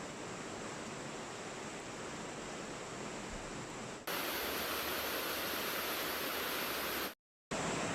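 Steady hiss of falling rain. About four seconds in it cuts abruptly to a louder, brighter hiss, then drops out completely for a moment near the end before resuming.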